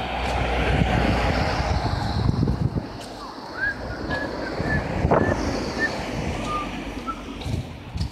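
Road traffic passing on a street, with wind buffeting the microphone. A few short high chirps come in the middle.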